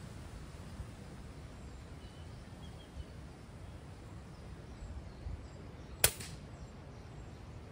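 A single shot from a silenced .177 FX Dreamline PCP air rifle about six seconds in: one sharp crack with a short tail, far louder than the faint background.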